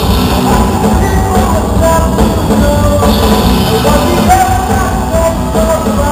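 Live rock band playing loud: electric guitars, bass and drum kit, with a voice singing held notes over them.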